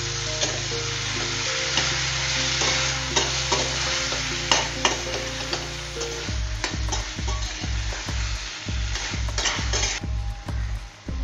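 Mutton pieces and shallots sizzling in oil in a frying pan while a ladle stirs them, knocking and scraping against the pan. The sizzle drops away near the end, and background music runs under it.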